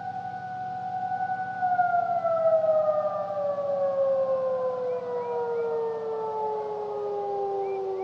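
Tornado warning siren sounding during its monthly test: it holds a steady tone, then about two seconds in it begins to wind down, its pitch falling slowly and evenly through the rest.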